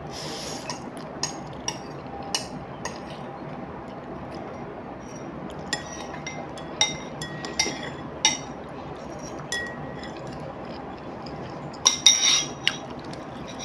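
Chopsticks clinking and tapping against a ceramic noodle bowl in scattered sharp clicks, some with a short ring. A slurp of noodles at the start, and a louder cluster of clinks near the end.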